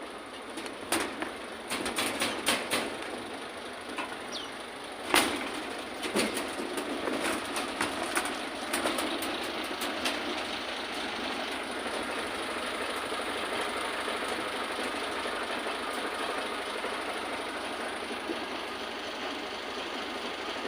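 An engine running steadily, with a run of sharp knocks and clicks over the first half, the loudest about five seconds in.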